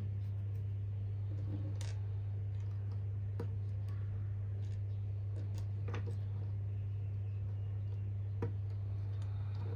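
Small plastic building bricks being handled and snapped together: a handful of sharp clicks a second or two apart, over a steady low hum.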